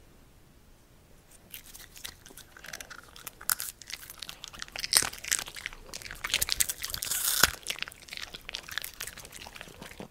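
Italian greyhounds chewing popcorn: a dense run of crisp crunches starting about a second and a half in, loudest near the middle.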